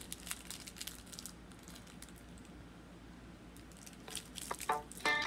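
A sheet of paper handled by hand: crackly rustling and crinkling through the first second or so, quieter for a while, then again about three and a half seconds in. Near the end, the first plucked guitar-like notes of music come in.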